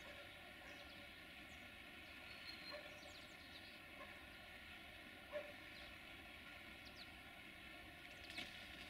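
Faint, steady drone of a distant LDH1250 diesel-hydraulic shunting locomotive moving slowly with a freight train, with a few short animal calls and chirps over it.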